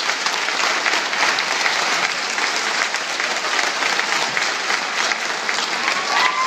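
Audience applauding steadily in an auditorium after a choir performance, with a brief whoop near the end.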